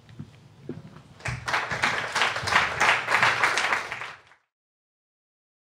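Audience applauding, starting about a second in and cut off suddenly about four seconds in.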